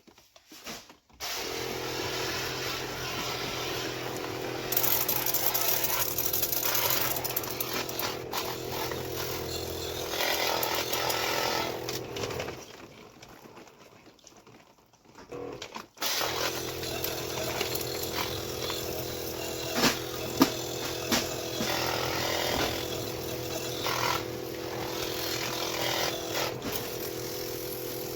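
A motor-driven machine starts about a second in and runs steadily with a hum and a hiss. It stops for a few seconds around twelve seconds in and starts again around sixteen seconds. A few sharp clicks come around twenty seconds in.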